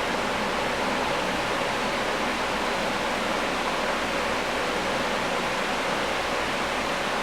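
Steady, even rushing noise, like a fan or blowing air, with no distinct events.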